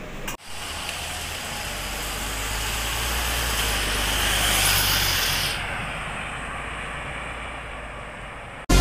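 MAN NL323F single-deck city bus passing close and pulling away on a wet road. Its engine hums low under the hiss of tyres on the wet surface, which swells to a peak about halfway through and then drops off quickly as the bus draws away.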